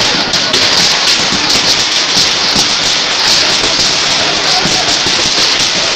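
Loud, steady clamour of a large crowd, many voices at once with no single voice standing out.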